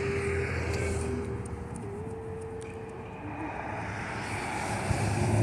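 A steady engine drone over a low rumble, with a humming tone that shifts slightly in pitch a couple of times; a deeper hum swells near the end.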